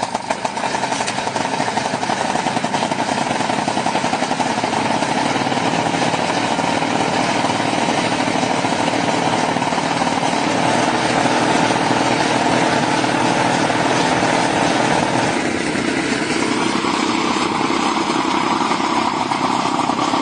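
Small engine running steadily with a fast, even firing rhythm. Its note shifts and settles at a new pitch about fifteen seconds in.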